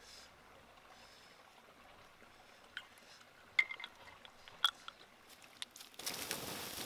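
A few sharp clicks and taps as cooked snail shells are handled and picked over. About six seconds in, a sudden steady hiss starts as water pours onto the campfire's hot embers and ashes, putting the fire out.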